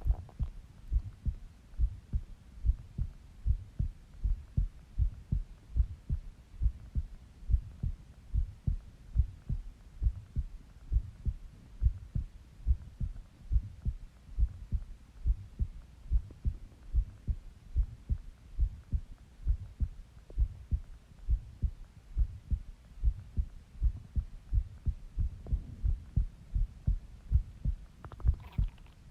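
A person's heartbeat heard close up on the chest: a steady, even run of low double thumps. A brief, fainter, higher sound comes in near the end.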